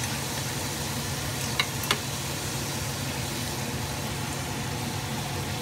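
A steady low mechanical hum with a soft hiss over it, from the kitchen as the spiced fish curry cooks on the stove. Two light clicks of a metal spoon against the pan come about a second and a half in, then again just after.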